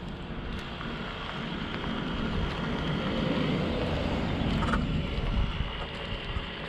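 Steady rush of wind on the microphone, mixed with bicycle tyres rolling over a gravel and dirt trail.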